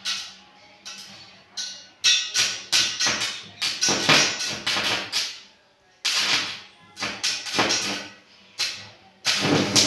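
Electric arc crackling and sputtering in a run of short, loud bursts as a mains-powered electrode rod is struck against a steel pipe. The rod is fed through a homemade salt-water bucket welder.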